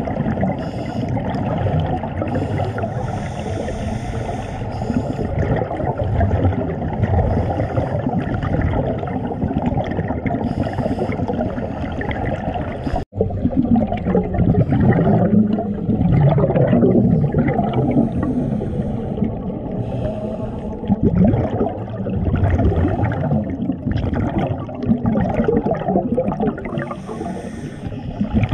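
Underwater sound of scuba divers breathing through their regulators: a steady muffled rumble with irregular bursts of bubbling as exhaled air streams out and rises.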